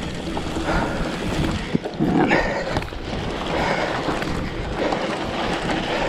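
Wind blowing over the microphone in a steady rush of noise.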